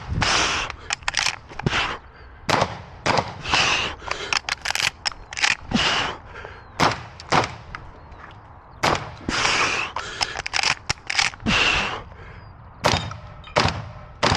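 Shotgun fired rapidly through a practical-shooting stage: strings of sharp shots in quick succession, broken by short pauses.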